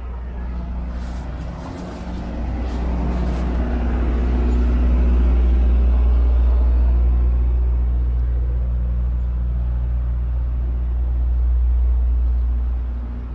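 Road traffic in congested city streets, with a heavy vehicle's engine running close by: a loud, deep rumble that builds a couple of seconds in and eases off near the end.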